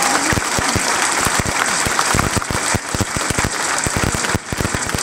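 A large seated audience applauding, with steady, dense clapping.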